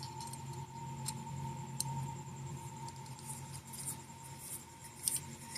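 Small metal bolts being handled and started into an aluminium flat pedal body: a few light clicks early on, then soft scraping and rustling. A faint steady hum sits underneath.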